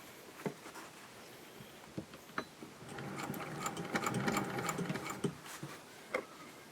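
Singer 201K sewing machine stitching a rolled hem, running in one short burst of about two and a half seconds in the middle. A few sharp clicks come before and after the run.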